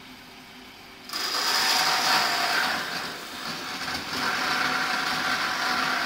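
MAXGRID band saw cutting a floor panel: the saw runs quietly, then about a second in the blade bites into the panel and a loud, steady cutting noise with a high whine takes over, easing briefly twice.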